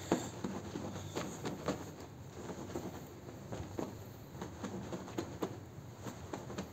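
Stiff-bristled push broom scrubbing a wet, soapy rug on a tile floor: irregular short, wet scrubbing strokes, about two or three a second, with a sharper stroke just after the start.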